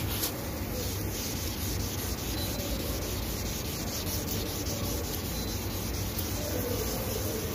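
Hand sanding the red paint of a car bumper with a small abrasive pad, a steady scratchy back-and-forth rubbing. This scuffs the area around the primed spot ready for basecoat.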